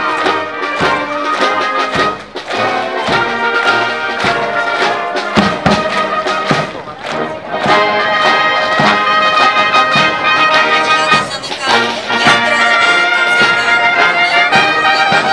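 Uniformed police brass band playing a march, with sharp percussive beats through it.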